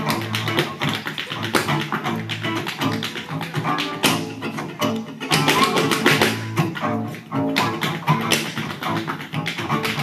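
Live fiddle tune with upright bass and acoustic guitar, over which a step dancer's shoes tap out rapid, rhythmic steps on the stage.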